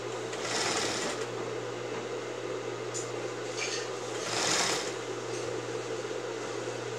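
Industrial lockstitch sewing machine running with a steady motor hum as a sleeve seam is sewn, with two short louder spells of stitching, about half a second and four and a half seconds in.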